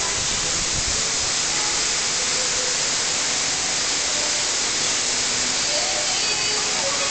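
Steady rushing hiss, strongest in the upper register, with faint music starting to come through near the end.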